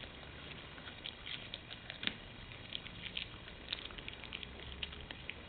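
Light, irregular clicks and taps from a Siberian husky, several a second, with one louder click about two seconds in.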